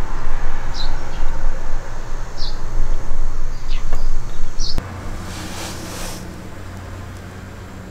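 Wind buffeting the microphone, with a small bird giving short high chirps about once a second. Near the end the sound cuts to a quieter steady low hum with a brief hiss.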